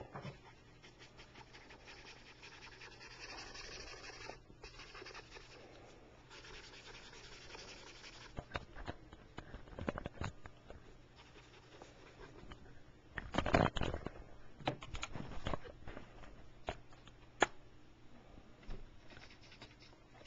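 Felt-tip marker rubbing and scratching across paper as a drawing is coloured in, with scattered knocks and bumps, the loudest a short cluster about two-thirds of the way through.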